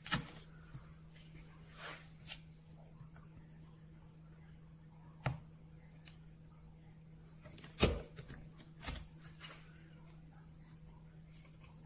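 Large wood chisel paring and cutting a recess into a timber panel by hand: a few separate short clicks and knocks as the edge cuts into the wood, the sharpest about five seconds in and the loudest about eight seconds in, over a steady low hum.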